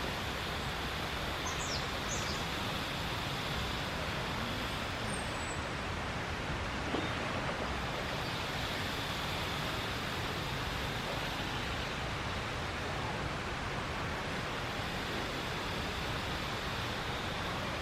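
Steady, even outdoor background noise, with a few faint, short high chirps about two seconds in.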